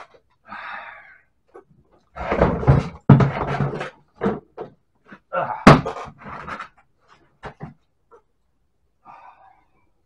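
Clatter and knocks of a small plastic waste bin being handled and set down on a concrete floor, with one sharp clack a little past halfway.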